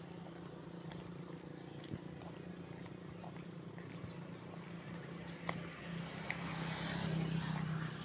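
Footsteps walking across a concrete road onto loose gravel, with scattered clicks of grit underfoot and a louder crunching near the end, over a steady low hum.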